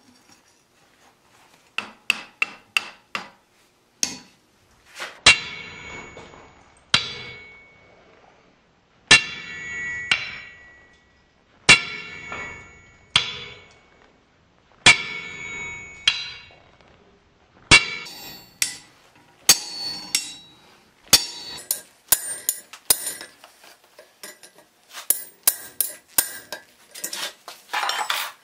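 Hand hammer striking a top-and-bottom fuller on a red-hot iron bar on an anvil, necking a groove into the bar. A quick run of four blows, then single blows every second or two, each ringing out metallically, and faster blows near the end.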